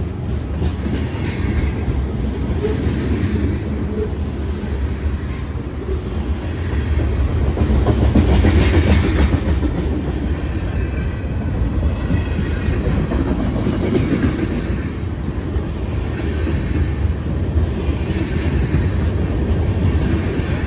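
A BNSF mixed freight train's cars (covered hoppers, gondolas and tank cars) rolling past close by: a steady heavy rumble of steel wheels on rail with clickety-clack over the joints, swelling loudest about eight seconds in.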